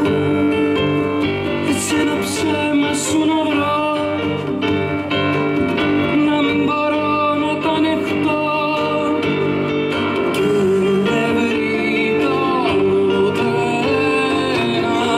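Live band music: a woman singing held, wavering notes over acoustic guitar and keyboard.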